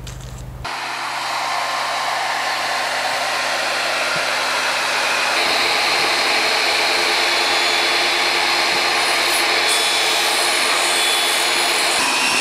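Craftsman table saw running and ripping a rough-edged pine plank along its rip fence: a loud, steady whine of the motor and blade. Its tone shifts about five seconds in.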